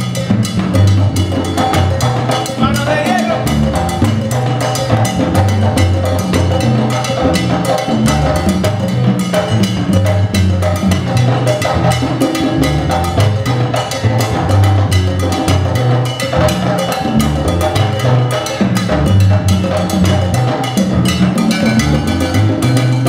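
Live salsa band playing an instrumental passage, led by congas and other Latin percussion in a steady, fast groove over a bass line.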